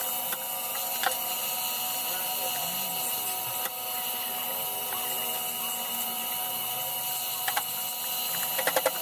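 A small electric motor running steadily with a high whine and hiss, with a few sharp clicks and a quick run of clicks near the end.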